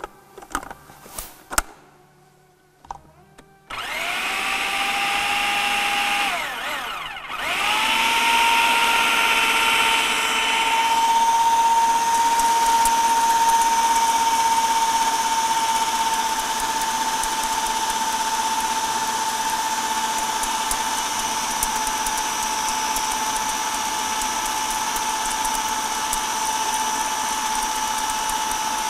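Condor food processor mixing a batter. A few clicks come as the lid and pusher are set in place, then the motor starts with a rising whine about four seconds in. It slows briefly, picks up again and then runs steadily.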